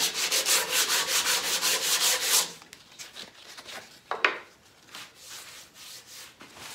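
Hand sanding of a hardwood elm table leg with a small piece of sandpaper, in quick back-and-forth strokes of about five a second that stop about two and a half seconds in. The sanding knocks back fresh wire-wheel scuff marks in the wood.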